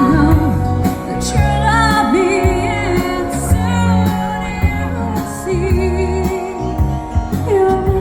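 A woman singing a pop song with a band, holding long notes with vibrato over bass and drums.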